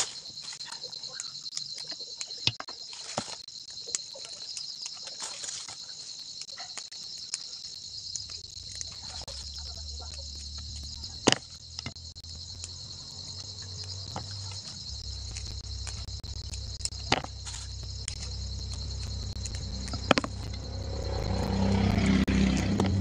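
Crickets trilling steadily, with scattered sharp snaps and rustles of leafy vegetable stems being broken and stripped by hand into a plastic bowl. A low hum comes in partway through and grows louder near the end.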